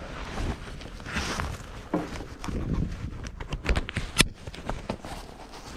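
Close handling sounds: clothing and gear rustling, with a string of small clicks and knocks. The sharpest click comes a little past four seconds in.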